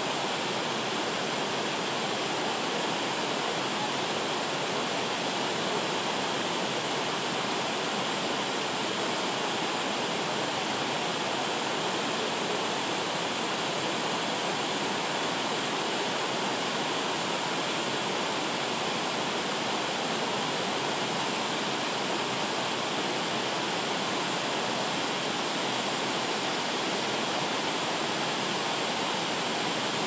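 A waterfall with a drop of over 30 metres, white water pouring down a rock wall: a steady, unbroken rush.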